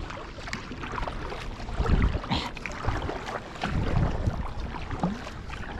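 Kayak paddling: paddle strokes moving water alongside an Oru folding kayak, with two stronger swells about two seconds apart.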